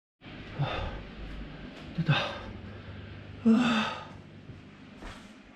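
A person's breath sounds: three loud exhalations about a second and a half apart, over a low steady hum.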